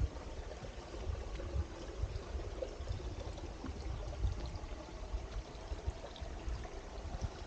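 Small woodland stream trickling and running, under an irregular low rumble on the microphone.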